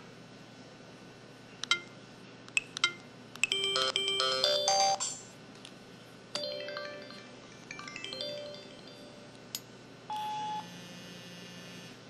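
Samsung SPH-X8300 mobile phone playing its built-in sound effects: a few short key beeps, a quick melodic jingle, then short runs of falling chime tones. About ten seconds in a single beep is followed by a low steady buzz as the phone switches to manner (vibrate) mode.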